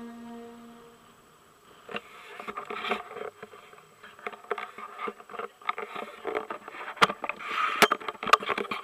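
Wind and handling noise on a pole-mounted camera during a tandem paraglider flight: an irregular crackling and rustling with many sharp clicks, busier and louder near the end.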